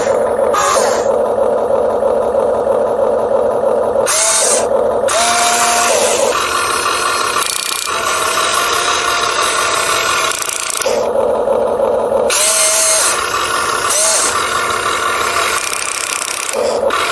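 Remote-control toy excavator's small electric gear motors whining as it is driven and its arm works. The whine shifts in pitch and stops and starts several times.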